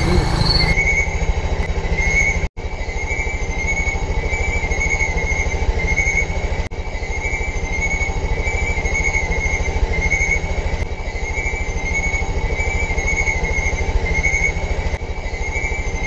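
Night insects chirping in a steady repeating pulse, about one and a half chirps a second, over the low, even rumble of an idling motorcycle engine. The sound cuts out for an instant about two and a half seconds in.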